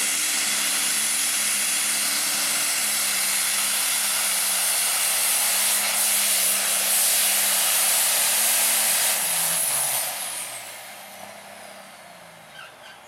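John Deere diesel pulling tractor at full throttle, dragging the weight-transfer sled down the track: a loud, steady engine note with a high hiss over it. About ten seconds in the driver lets off, and the engine winds down with a high, falling whistle.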